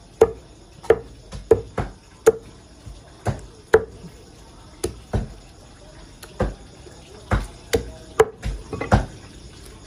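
Meat cleaver chopping raw chicken into pieces on a thick round wooden chopping block: a string of sharp chops at an irregular pace, roughly two a second.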